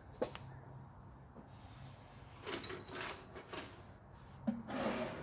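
Handling noises of small hard objects being moved and set down on a desk: a sharp click just after the start, a run of rattling and clattering about halfway through, and a couple of knocks near the end.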